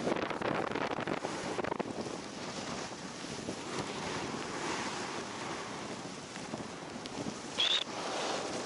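Snowboard sliding through deep snow, a steady rushing hiss mixed with wind buffeting the microphone, with a brief louder hiss near the end.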